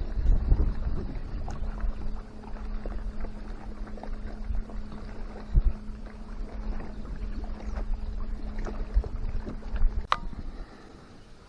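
Wind rumbling on the microphone and water knocking against a kayak hull, with a steady low hum that stops about ten seconds in, followed by a sharp click.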